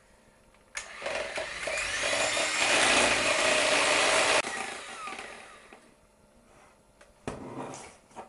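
Electric hand mixer whisking egg whites in a plastic jug: the motor starts about a second in, runs steadily for a few seconds, then is switched off and winds down. A short knock near the end.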